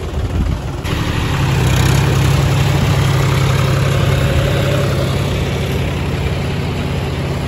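Diesel engines of two tractors, a John Deere 5036 D and a Mahindra 265 DI XP Plus, running hard under load as they pull against each other on a chain. The engine noise swells about a second in and then holds a steady low drone.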